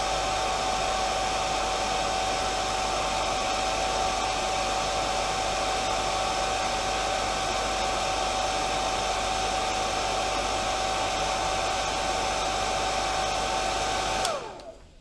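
Heat gun running steadily, a rushing blast of air with a steady motor whine, as it heats a phone's rear glass to loosen it. About 14 seconds in it is switched off, and the whine slides down in pitch as it dies away.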